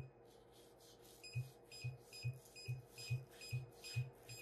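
FLSUN Super Racer 3D printer's touchscreen beeping as the Z-adjust control is tapped repeatedly to step the nozzle down toward the bed while setting the Z offset. There is one beep at the start, then a run of short beeps about two a second from a second and a half in, each with a brief low thump.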